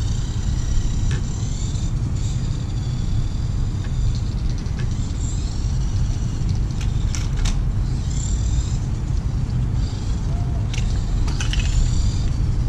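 Small electric RC trike's motor whining thin and high, rising and falling in pitch in short spurts as it accelerates and slows, over a heavy low rumble, with a few light clicks.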